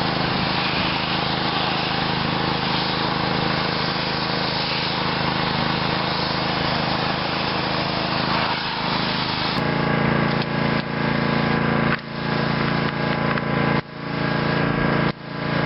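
Karcher pressure washer running with the wand spraying: a steady hiss over the machine's hum. About ten seconds in the spray stops short while the machine keeps running, its hum dropping briefly several times. This is the trigger being let off and worked, as the stuck pressure relief valve leaves no pressure at the wand.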